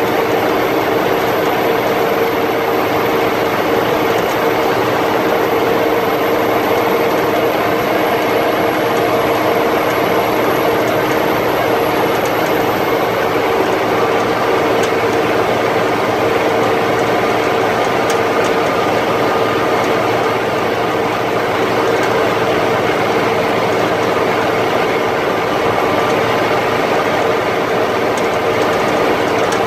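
Cab noise of an M35A2 2½-ton military truck under way, heard from inside the cab: its multifuel turbo-diesel engine and the road noise make a loud, steady drone with a steady hum running through it.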